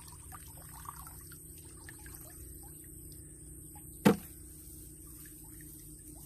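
Shallow ditch water trickling and dripping as hands work in it, with small splashes, and one sharp loud knock about four seconds in.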